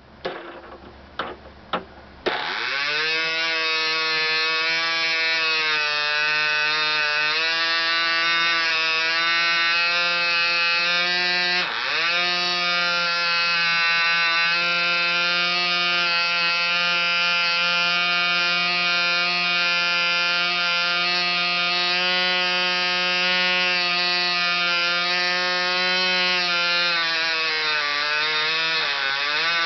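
Picco 12 Turbo model glow engine, an ABC three-port two-stroke swinging a propeller, catching about two seconds in after a few clicks, then running at high revs with a steady high-pitched buzz. Its speed dips sharply for a moment around twelve seconds in, and sags and wavers near the end.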